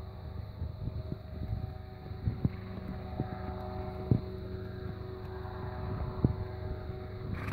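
A steady mechanical drone, like a running motor or engine, with a low rumble and several fixed humming tones, broken by a few short sharp knocks at irregular moments.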